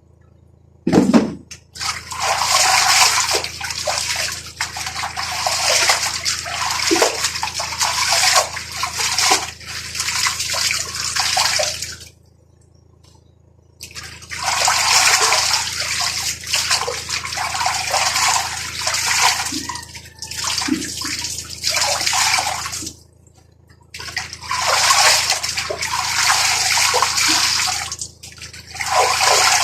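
Water running and splashing in three long stretches. It starts about a second and a half in and stops briefly twice, near 12 s and near 23 s.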